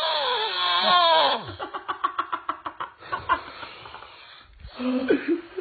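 A person's long wailing cry that rises and then falls in pitch, followed by a rapid run of laughter.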